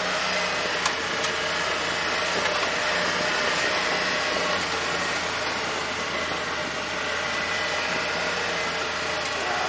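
Vehicle engine running steadily, with the constant noise of travel along a trail.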